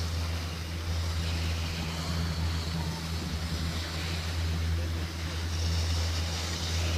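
A steady low mechanical drone with a hiss above it, holding at an even level throughout.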